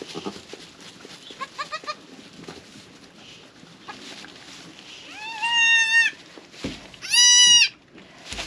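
Newborn goat kids bleating: a quick run of four short high bleats about a second and a half in, then two long high bleats about five and seven seconds in, the second the loudest.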